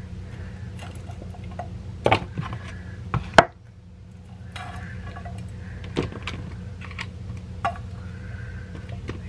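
Cherries being handled and dropped into a plastic food container from an enamel bowl: scattered light knocks and clatter, with a few sharper ones around two to three and a half seconds in, over a steady low hum.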